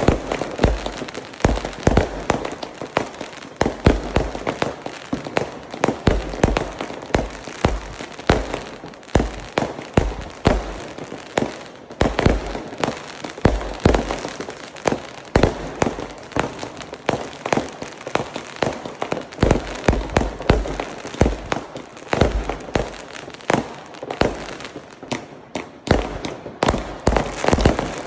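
Fireworks display going off continuously: rapid, irregular booms and bangs several times a second over a steady crackle.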